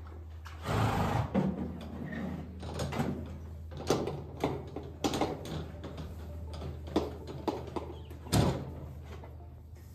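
Irregular knocks, clatters and scraping from handling things in the barn, with a louder scraping rush about a second in and a sharp, heavy knock near the end, over a steady low hum.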